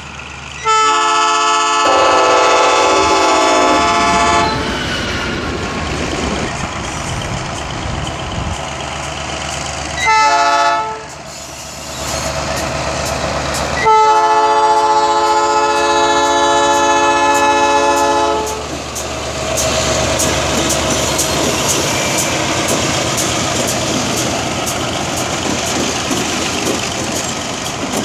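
Air horn of a GM G22UC diesel-electric freight locomotive sounding three blasts: long, short, long. The diesel engines then run past with a steady rumble and a string of clicks from the wheels on the track.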